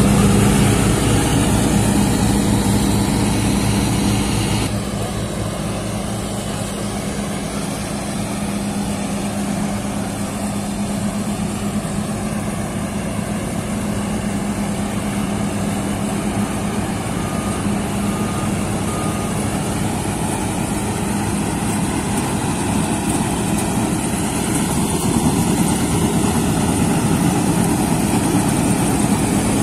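New Holland combine harvester running while cutting alfalfa: a steady diesel engine and machinery hum, loud and close at first, then suddenly more distant about five seconds in, and swelling again as the machine comes nearer near the end. Three short faint beeps sound about two-thirds of the way through.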